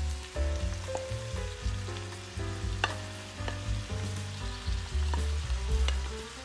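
Food frying in a hot pan, with a steady sizzle and a few sharp clicks as pieces of chicken are pushed off a plate into the pan with a wooden spatula. Background music with a steady bass line plays underneath.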